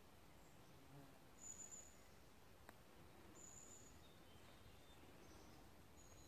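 Near silence of woodland, with three short, very high, thin bird calls spaced a couple of seconds apart and a single faint click midway.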